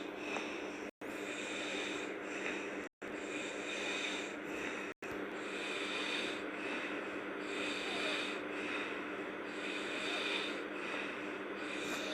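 A sleeping girl snoring, each breath an airy hiss that swells and fades. The audio cuts out briefly three times in the first half.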